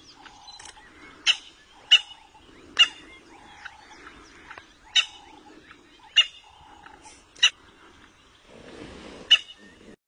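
Impala lamb's short, sharp distress bleats, about seven loud calls at uneven gaps of about a second or two. A lower, rougher noise comes near the end.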